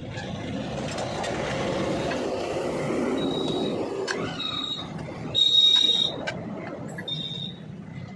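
A passing vehicle's rumble swells over the first few seconds and fades, with several short high-pitched tones on top, the loudest lasting under a second about five and a half seconds in.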